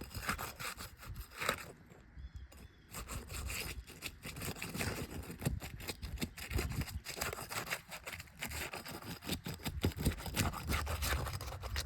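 Irregular scraping, rubbing and clicking on an asphalt shingle roof as shingles and roofing tools are handled.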